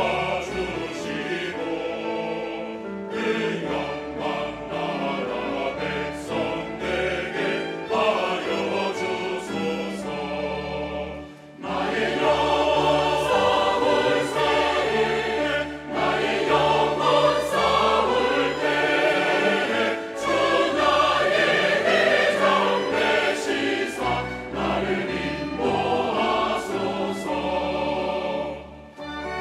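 Large mixed church choir singing a Korean hymn in parts, with orchestral accompaniment. The sound drops briefly about eleven seconds in, then comes back louder and fuller.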